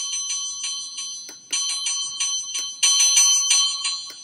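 SadoTech Starpoint wireless doorbell receiver playing its electronic bell chime, a quick run of ringing strikes about three a second. It steps up in loudness twice as its volume control button is pressed, then drops away near the end.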